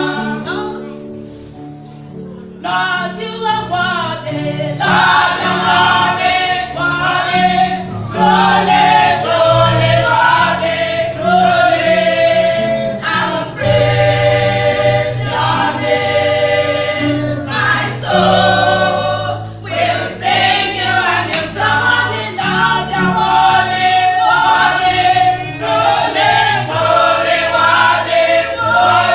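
Church choir singing a gospel song, with sustained low notes underneath; the singing dips quieter for about two seconds near the start, then carries on at full level.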